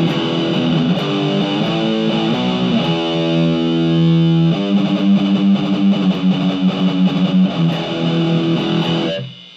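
Electric guitar played through a Marshall MG15MS2 micro stack's overdrive channel at low gain, on its stock speakers: distorted chords and notes, one chord held for a second or so about a third of the way in, the playing stopping just before the end.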